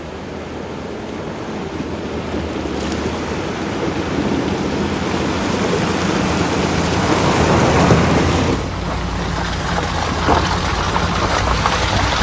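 Off-road vehicle driving through a creek water crossing: a steady engine drone under a rushing, splashing water noise that builds, loudest about eight seconds in, then eases briefly.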